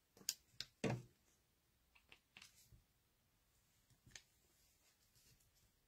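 Light clicks and taps of a pen-style pick-up tool lifting small self-adhesive gems off their sheet and pressing them onto cardstock: a few sharp clicks in the first second, then fainter scattered ticks.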